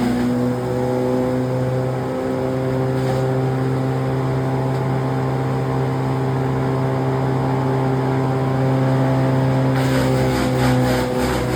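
Engine of a trailer-mounted branch shredder running at a steady speed, with a fast rattling clatter joining in near the end.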